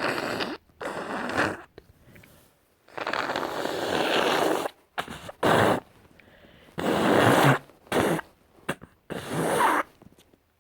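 A person with a congested nose from a cold blowing their nose in a series of forceful noisy blasts. The longest lasts nearly two seconds, a few seconds in, and shorter blows follow it.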